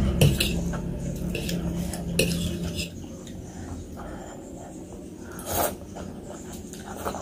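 Cutlery clinking and tapping against a bowl of noodles and meatballs in a string of separate light clicks, with a longer, noisier scrape or slurp a little past two-thirds through.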